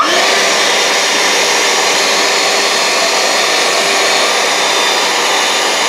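Handheld vacuum cleaner switching on and running steadily, a motor whine over the rush of air, its nozzle held to the clump crusher of an espresso grinder to suck off coffee buildup.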